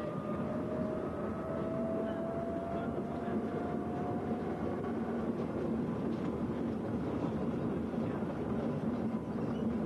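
Motorized rail works trolley (drezine) running along the track: a steady mix of motor and wheel-on-rail noise, with a whine that slowly rises in pitch over the first four seconds or so before fading.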